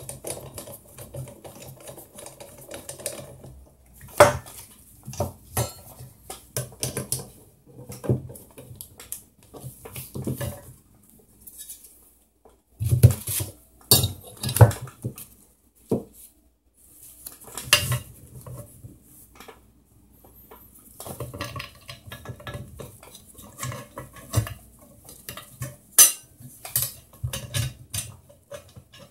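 Metal TV wall-mount parts and bolts clinking and clattering as they are handled and fitted together: irregular sharp knocks and clinks, with a couple of short pauses.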